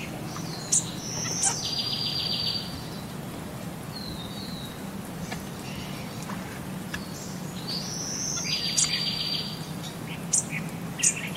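Birds chirping, with two buzzy trilled calls about a second long, one near the start and one about three-quarters through, between short sharp chirps, over a steady low background hum.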